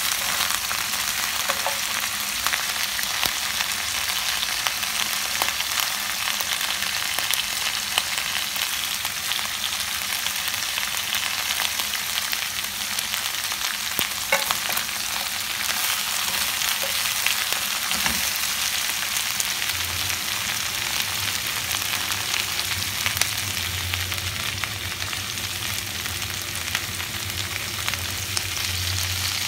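Mixed vegetables (cauliflower, broccoli, okra, onion and capsicum) sizzling steadily in oil in a non-stick pan, with a few light taps and scrapes as a wooden spatula stirs them.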